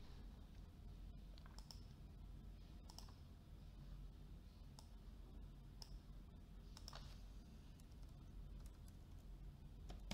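Faint computer mouse clicks, about half a dozen scattered a second or two apart, with a key pressed near the end, over a low steady hum.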